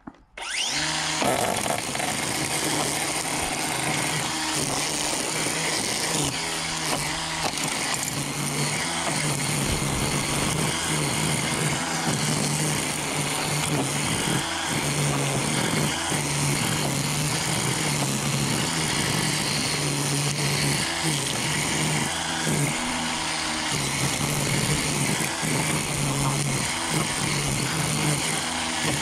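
DeWalt DCST922B 20V cordless string trimmer running at full trigger on its low speed setting, cutting weeds. It spins up just after the start, its whirring hum dips and recovers as the line strikes growth, and it winds down at the very end.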